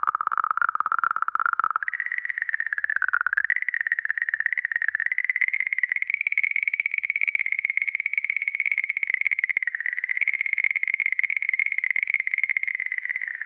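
A comet's space signal converted into audible sound: a single electronic tone with a fast flutter, which jumps up in pitch a little under two seconds in and then holds steady, wavering slightly.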